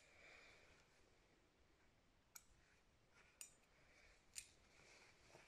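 Near silence, with three faint clicks about a second apart from hand sewing: needle and thread being worked through white cotton fabric.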